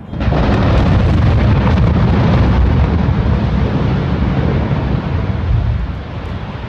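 Controlled explosive demolition of a large building: a sudden loud boom, then about six seconds of low rumbling and crackling as the structure comes down, easing off near the end.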